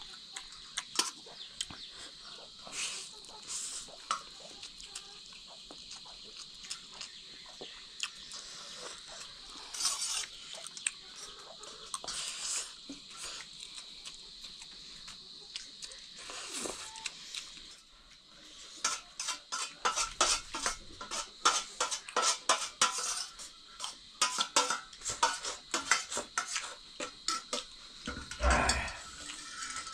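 Metal utensils clinking and scraping against pots and dishes: scattered knocks at first, then rapid, busy clatter over the last ten seconds or so, with one heavier knock near the end.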